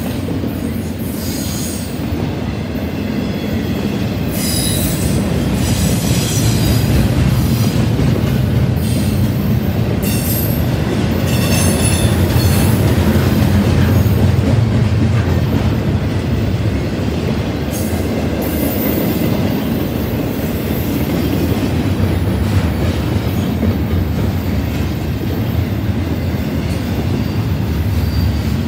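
Double-stack intermodal container well cars of a freight train rolling past at close range: a steady rumble of steel wheels on rail, growing louder toward the middle. High-pitched wheel squeals come and go twice in the first half.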